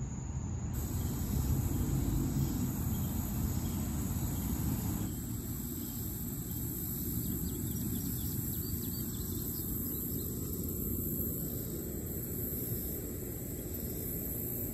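Steady low wind rumble on the microphone with a constant high, thin insect drone, as of crickets, throughout.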